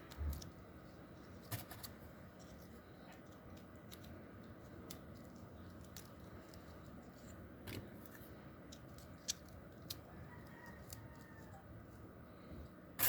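Faint, scattered clicks and snips of small hand work on a transformer winding at a workbench, a few sharp ticks spread over several seconds against a quiet background.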